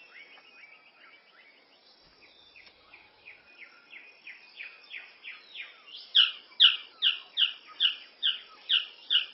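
Male magnificent bird of paradise calling: a run of short, evenly repeated downward-sliding notes, about two a second, that build from faint to loud from about six seconds in. Fainter chirps come before the run.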